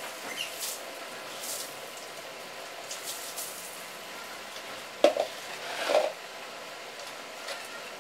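Motorcycle being washed by hand: a steady wet, fizzing hiss with scattered light taps, and two louder short rubbing sounds about five and six seconds in.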